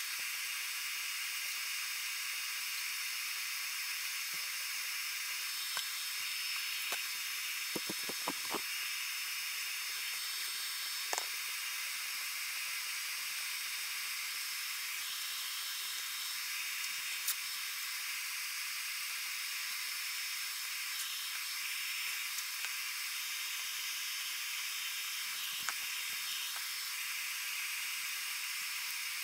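Steady hiss with a few scattered light clicks.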